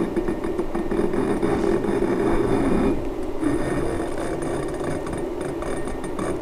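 A steady low hum that drops back about three seconds in, with faint light clicks and scrapes as the threaded tuning rod on a duplexer cavity is turned by hand.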